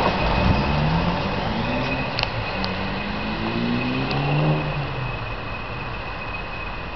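Two Class 20 diesel locomotives working together, running out slowly under load. A low engine note rises and falls in pitch under the class's steady high whistle, and the whole sound fades as the train draws away. A few faint clicks sound around the middle.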